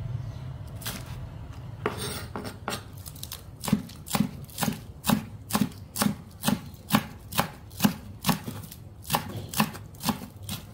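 A kitchen knife chopping spring onions on a wooden cutting board. The strokes begin about two seconds in and settle into an even rhythm of about two and a half chops a second.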